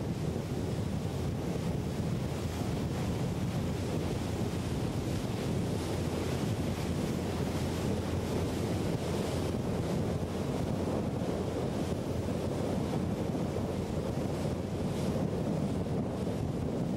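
Steady wind buffeting the microphone over rushing water and waves, a dense low rumble with no clear engine note standing out.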